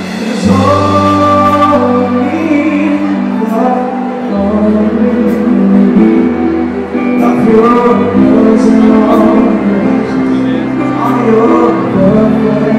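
Live band playing a slow song with a singer's voice over it, sustained bass notes changing every couple of seconds beneath piano and vocal melody.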